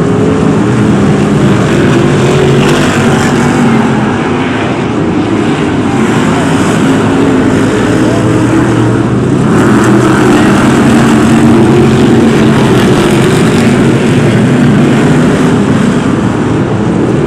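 A pack of BriSCA F1 stock cars racing, their V8 engines running loud together, with revs rising and falling as the cars lap the oval.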